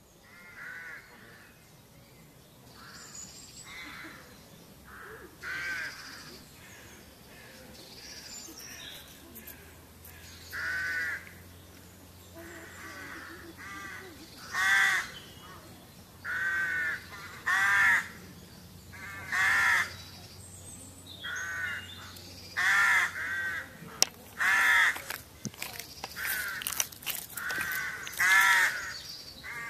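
A string of short animal calls, each rising and falling in pitch, coming about every one to two seconds and growing louder in the second half.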